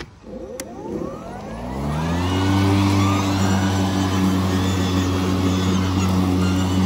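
Ego Power+ Select Cut XP 56-volt battery lawnmower started at its push button. After a click, the blade motor spins up with a rising whine over about two seconds, then settles into a steady electric hum as the mower cuts grass.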